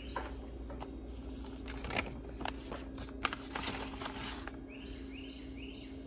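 Paper rustling in several short bursts as the pages of a ceiling fan installation guide are handled and turned. Near the end, three short rising chirps.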